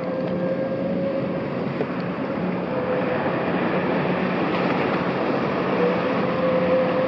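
Kvaerner Fjellstrand 35M Foilcat high-speed ferry running at speed on its foils: a steady gas-turbine hum with one held tone over the rush of water and spray.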